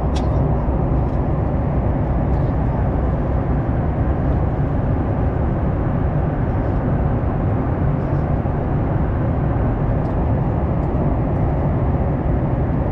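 Steady cabin noise of a Boeing 737 MAX 9 in flight, a deep even rush of airflow and engine drone heard from inside the cabin, with a light click right at the start.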